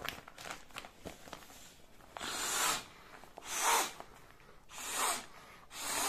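Someone blowing by mouth into the valve of a Forclaz inflatable sleeping mattress: four long puffs of breath about a second apart, after a soft rustle of the mattress fabric at the start.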